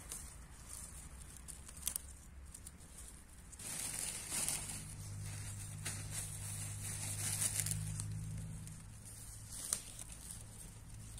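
Rustling, crinkling and tearing as wild greens are picked by hand, with scattered light clicks; a low steady hum sits under it through the middle.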